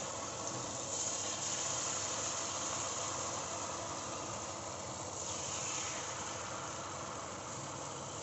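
Jalebi batter sizzling as it is piped into hot oil in a kadai: a steady frying hiss.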